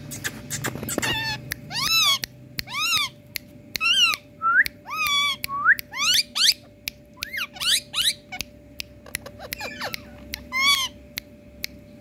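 Rose-ringed parakeets calling: a quick run of short, arching whistled calls, some sliding upward, about one or two a second, with sharp clicks scattered between them.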